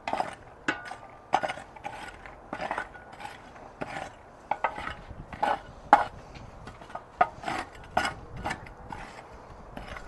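Irregular scrapes, clanks and knocks of a metal tool and leftover charcoal lumps against the enamelled steel bowl of a Weber charcoal kettle, some ringing briefly, as spent coals are sifted from the ash.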